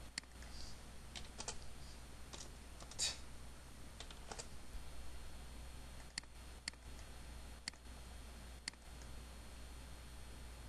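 Computer keyboard typing a few irregular keystrokes, the loudest about three seconds in, then four single sharp mouse clicks about half a second to a second apart, over a steady low hum.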